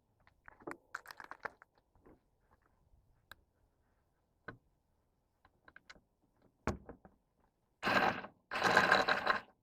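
Small clicks and ticks of hardware being handled, then two short, raspy ratcheting sounds near the end, each under a second, the louder one last.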